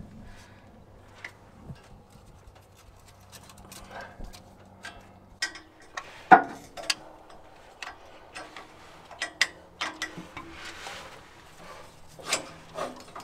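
Scattered small metal clicks, taps and knocks as a copper exhaust manifold gasket and its bolts are handled and fitted against the engine, the loudest knock about six seconds in and a cluster of clicks around ten seconds. A faint low hum runs under the first five seconds and then stops.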